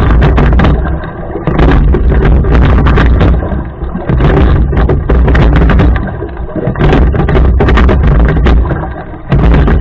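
Rowing boat under way: a loud low rumble with clicks and knocks that swells and dips in a steady cycle about every two and a half seconds, in time with the rowing strokes.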